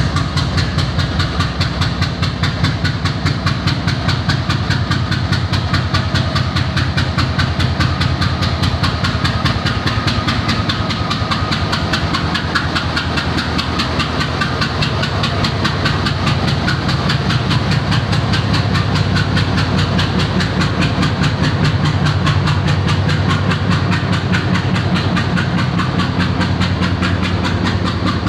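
WDG-6G diesel locomotive's 16-cylinder GE Evolution engine running steadily, a loud, even drone with a fast pulsing beat.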